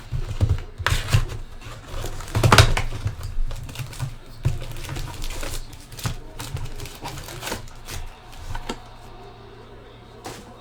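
Trading card hobby box and foil packs being handled and opened: irregular crinkling and clicking, loudest about two and a half seconds in and thinning out near the end.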